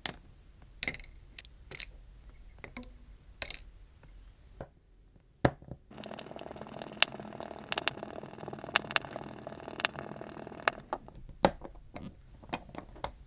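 Small hand tools working on an opened Samsung Galaxy S23: sharp clicks and taps of a plastic pry tool and a small Phillips screwdriver against the phone's metal frame and internal parts. A denser stretch of continuous rasping with clicks runs from about six to eleven seconds in.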